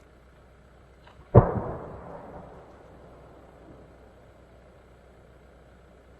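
A single firework going off with one loud bang about a second and a half in, just after a faint pop, its rumble dying away over a second or two.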